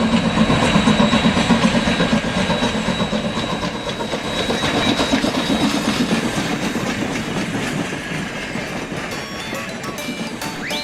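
Train running along the rails with a rhythmic clickety-clack, loudest at the start and slowly fading.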